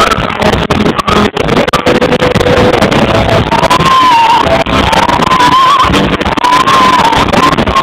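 Live hard rock band playing loud through a PA, with distorted electric guitars and drums, recorded close to the speakers so the sound is heavily overloaded and harsh. A wavering high melody line comes in about halfway.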